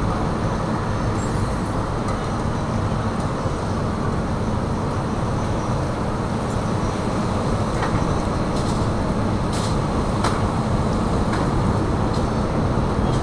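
Steady low drone of the Carnival Glory cruise ship's engines as the ship passes close by, with a few faint clicks in the middle.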